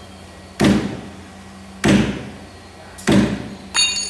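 Heavy blows struck on a large lim (ironwood) log with a long-handled tool: three sharp thuds about a second and a quarter apart. Near the end comes a shorter clank with a high metallic ring.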